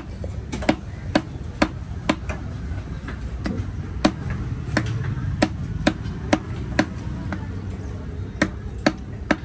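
Large fish-cutting knife chopping raw tuna loin into cubes on a round wooden chopping block: sharp knocks of the blade through the flesh into the wood, about two a second, with two short pauses.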